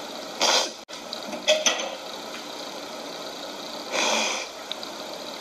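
A woman crying without words: three short, sharp sniffling breaths, about half a second in, at about a second and a half, and at about four seconds, over a steady background hiss.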